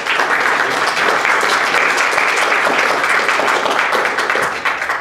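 Audience applauding: many people clapping together at a steady level, then dying away just after it ends.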